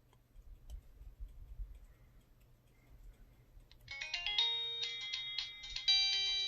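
Kyocera Blade cell phone playing a polyphonic ringtone through its small speaker: a melody of short synthesized notes and chords that starts about four seconds in. Before it there are only a couple of faint clicks.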